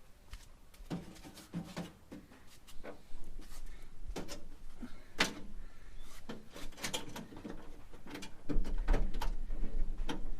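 Scattered clicks, knocks and rattles of a car door lock being worked loose and pulled out of an old Holden's door shell after its retaining clip is removed. A low rumble comes in near the end.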